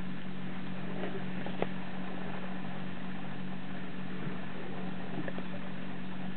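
Steady low mechanical hum at an even level, with one faint click about a second and a half in.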